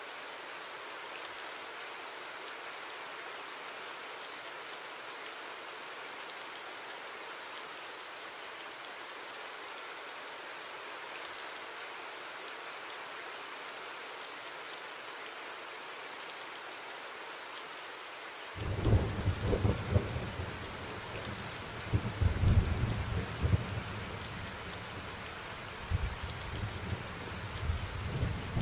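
Steady rain, a background sound effect. About eighteen seconds in, deep thunder rumbles join the rain and roll on with several louder surges to the end.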